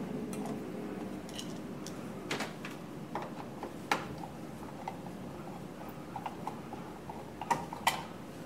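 Scattered light clicks and taps of a screwdriver working the screws on an oil burner's metal housing, with a few sharper clicks near the end as the air scoop is lifted off. A faint low hum sits underneath.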